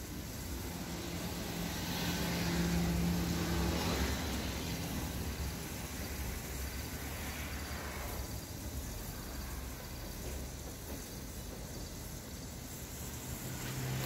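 A motor vehicle's engine hum swells and fades about two to four seconds in, over steady outdoor background noise; no clear birdsong stands out.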